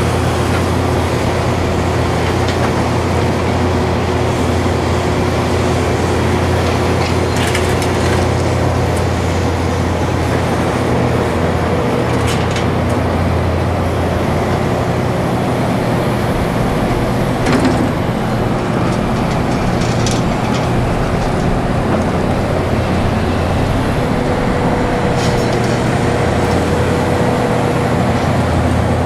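Large excavator's diesel engine running steadily, with a few scattered clicks and knocks and one sharper knock about two-thirds through.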